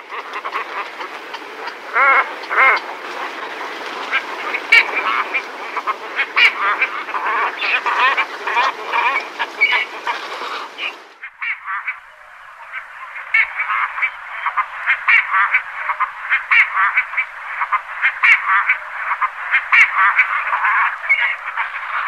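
Pygmy cormorants calling: a dense run of quick, overlapping calls from several birds. About halfway through, the sound turns thinner as a second recording begins.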